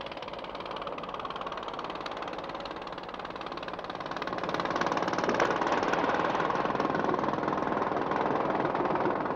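Fishing boat's engine running with a fast, even beat, getting louder about halfway through.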